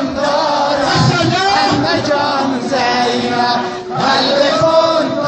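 A man's voice chanting a noha, a Shia mourning lament, in long melodic phrases with a short break nearly four seconds in.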